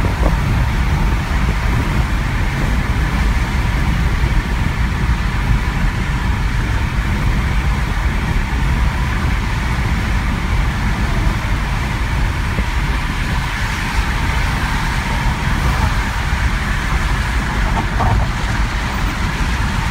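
Steady road and tyre noise heard inside a car's cabin while cruising at highway speed, about 65 mph.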